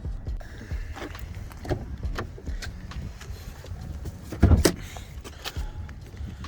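A series of light clicks and knocks with one louder thump about four and a half seconds in, over a steady low rumble.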